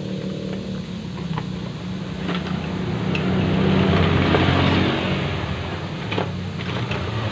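A motor engine running steadily with a low hum, swelling louder between about two and five seconds in and then easing off, with a few light clicks.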